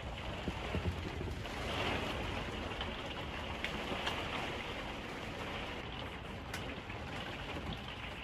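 Heavy rain beating on a motorhome's windscreen and body, heard from inside the cab: a steady hiss with scattered drop ticks, swelling a little about two seconds in.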